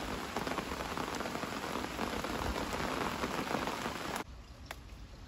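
Steady rain falling on trees and grass, an even hiss that cuts off suddenly about four seconds in.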